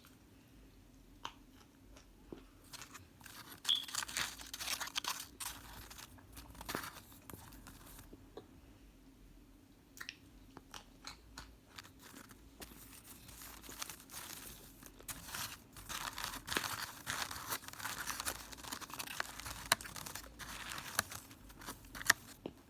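Microwaved cornstarch chunks being bitten and chewed, crunching in bouts of crisp crackling with short quieter pauses between.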